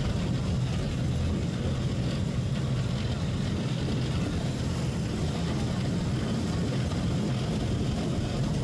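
Steady drone of a vehicle's engine and tyre noise on a wet road, heard from inside the moving vehicle.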